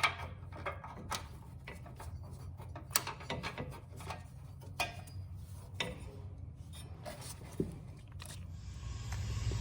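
Irregular mechanical clicking and knocking over a steady low hum, with a rising hiss near the end.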